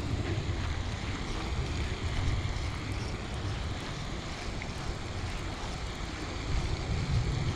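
Wind buffeting the microphone: a steady, low rumbling rush.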